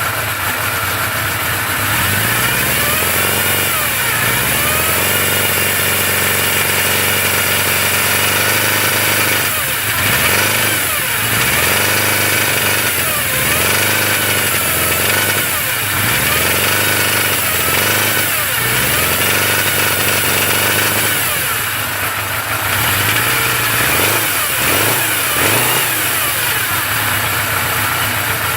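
1981 Suzuki GS850G's air-cooled inline-four engine running and being revved again and again, its pitch rising and falling with each blip, with a whine that follows the revs. The whine comes from a cam chain tensioner that is installed incorrectly.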